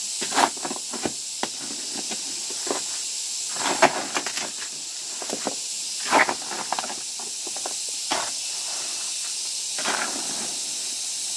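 Irregular knocks and short scrapes of bricklaying hand work, the sharpest about half a second, four, six and eight seconds in, over a steady high hiss.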